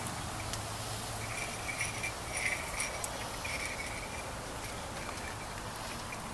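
Steady outdoor background hiss with a low hum, and faint high chirps that come and go every second or so.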